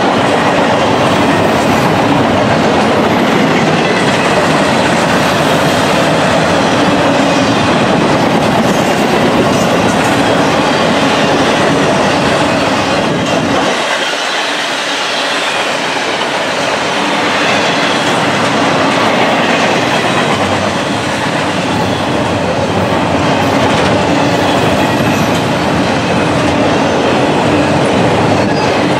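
An intermodal freight train's cars rolling past at speed: a loud, steady rumble and clatter of steel wheels on the rails. The deep rumble thins out for a few seconds about halfway through, then returns.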